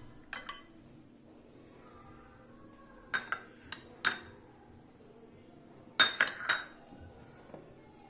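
A plastic spoon clinking against small glass spice bowls as salt and turmeric are scooped out, in a few short clusters of clinks, the loudest group about six seconds in.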